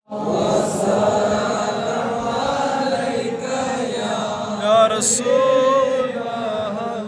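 Male chanting of an Islamic recitation: a melodic line of long drawn-out notes that bend in pitch.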